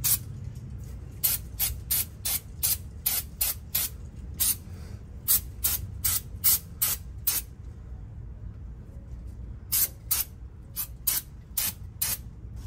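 Aerosol brake cleaner sprayed in many short bursts, about three a second, with a pause of about two seconds a little past halfway.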